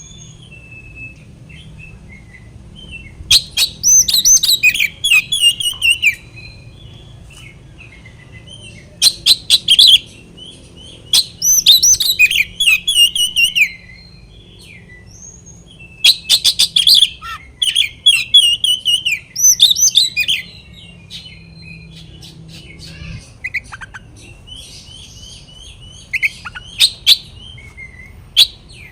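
Oriental magpie-robin (kacer) in full territorial song: loud bursts of a few seconds each of fast, varied high phrases mixed with harsh rattling notes, about five bursts with quieter twittering between.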